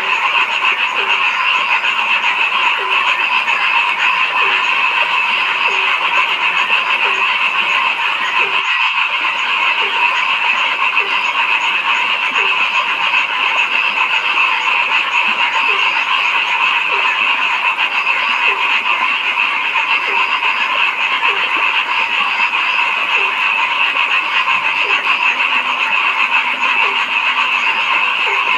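Dense chorus of frogs calling continuously, with one lower croak repeating about once a second through it. The chorus cuts out very briefly about nine seconds in.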